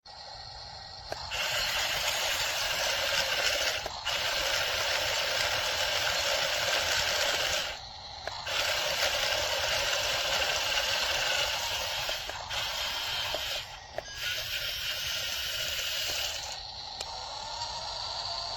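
Metal RC wheel loader's electric motors and gearboxes running in spells of a few seconds, each starting and stopping abruptly with short breaks between.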